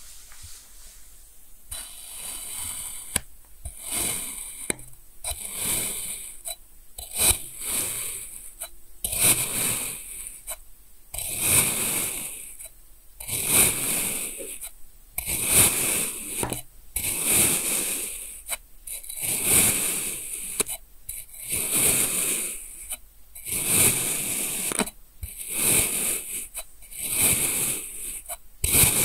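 A metal knife blade slicing down through packed kinetic sand again and again: short gritty scraping crunches, about one every second or so, starting about two seconds in.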